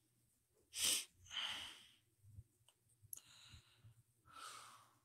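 A man breathing audibly close to the microphone: four breaths in and out, the first, about a second in, the loudest.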